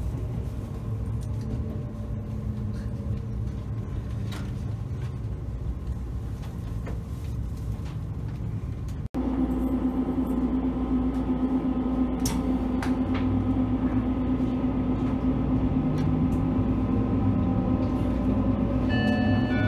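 Electric express train running, a steady rumble heard from inside the carriage. After a sudden cut about nine seconds in: a station platform with a steady low hum from the trains and scattered clicks and footsteps, and near the end a rising electric whine as a train pulls away.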